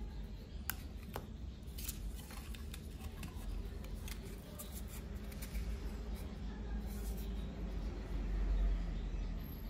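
Thin blank metal cards clicking and scraping against one another as a stack is handled and fanned, with several sharp ticks in the first half over a steady low rumble.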